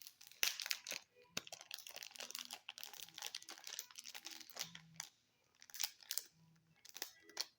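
Crinkly plastic packaging rustling and crackling as it is handled, in irregular bursts with a short lull about five seconds in.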